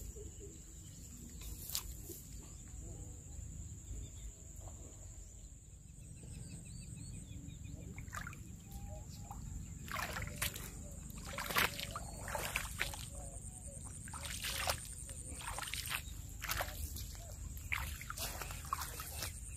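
A steady high-pitched cricket trill over low wind rumble. From about eight seconds in come a string of short splashes and rustles, from wading and casting in shallow, weedy water.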